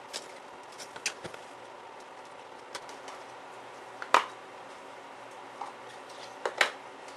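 Sealed trading-card box and packaging being handled and opened: scattered clicks, taps and light rustles, the sharpest about four seconds in and two more close together near the end.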